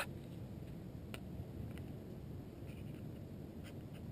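Starts with a sharp click, then a low, uneven rumble of handling noise on the microphone, with a few faint clicks from gloved hands and pliers.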